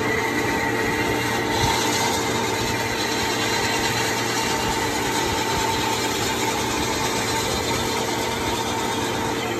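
Fletcher walk-through roof bolter running steadily while its mast drill head drives drill steel up into the mine roof: a constant mechanical drone with a steady tone, and a brief knock about a second and a half in.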